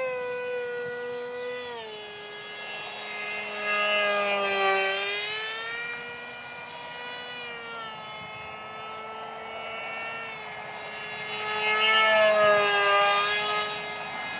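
Electric motor and propeller of a foam SU-47 Berkut RC park jet in flight, a steady whine whose pitch slides down and back up several times. It swells loudest twice, about four seconds in and again about twelve seconds in, as the model passes close.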